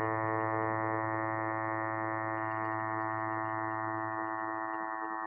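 A 110 Hz sawtooth test tone played through a computer speaker: one steady low note with a long stack of evenly spaced overtones.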